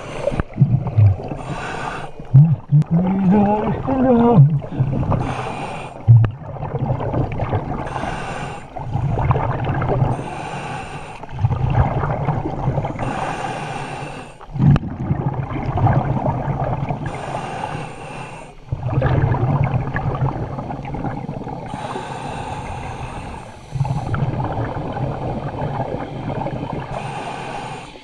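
Scuba regulator breathing heard underwater: a hiss on each inhale and a long bubbling rumble on each exhale, repeating every few seconds. A brief warbling, rising tone sounds about two to four seconds in.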